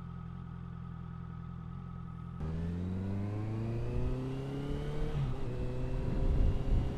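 Honda CBR650F inline-four with an Ixil aftermarket exhaust, running steadily at first, then accelerating. The engine note rises, drops briefly at a gear change about five seconds in, and climbs again.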